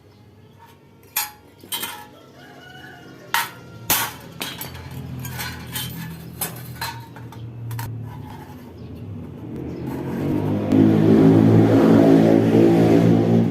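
Sharp metal clinks and knocks as steel parts and tools are handled, then an electric power tool's motor builds up from about nine seconds in and runs loud and steady to the end.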